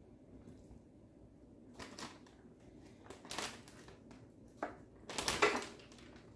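Plastic zipper bag of dry fry batter mix crinkling and rustling in short bursts as raw chicken strips are put into it and the bag is handled, the loudest rustle about five seconds in.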